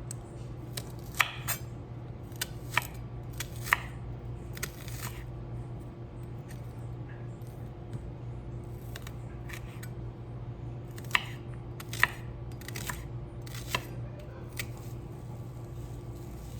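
About fifteen short, sharp clicks and snips at irregular intervals, a few much louder than the rest, over a steady low hum.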